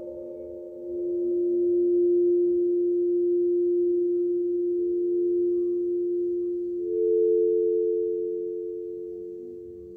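Long, pure ringing tones from a set of tall upright metal tone bars. One low note swells in about a second in and rings on. A slightly higher note swells in near the end, and both slowly fade.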